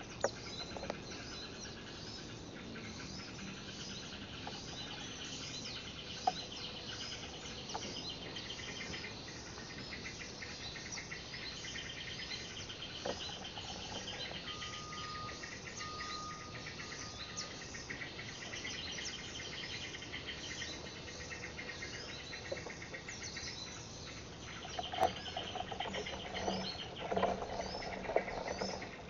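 Forest ambience: many small birds chirping and twittering over insects trilling in steady pulsed rows. A few louder rustles and knocks come near the end.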